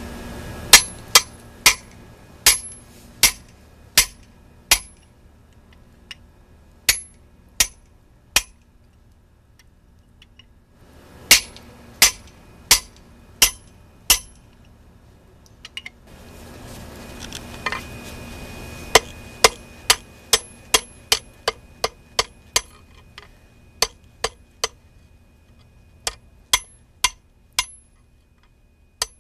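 Blacksmith's hammer striking red-hot steel on an anvil, each blow with a sharp, high-pitched ring. The blows come in bursts of about one to two a second, with pauses between bursts, and a steady rushing noise rises and falls in the gaps.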